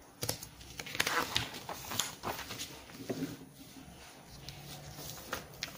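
Handling noise of a paper manual and packaging: rustling with irregular sharp clicks and taps.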